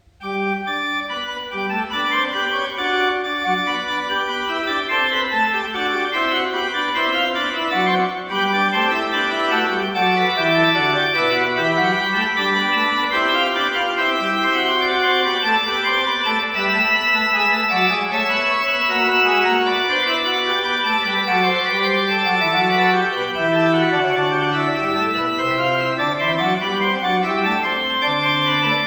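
Organ music: sustained chords with a moving bass line, starting suddenly and playing on steadily.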